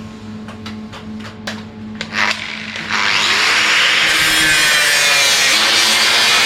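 Angle grinder grinding down stick-weld build-up on a steel anvil's corner. After a few light clicks, the disc bites about three seconds in and gives a loud, steady grinding hiss.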